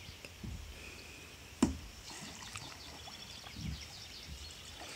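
Faint outdoor ambience with small bird chirps and a few soft low bumps, broken by one sharp knock about a second and a half in.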